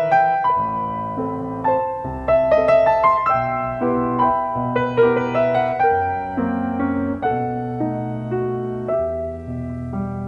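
Piano playing a slow instrumental interlude in a romance: a melody line over chords and low bass notes, each note struck and fading.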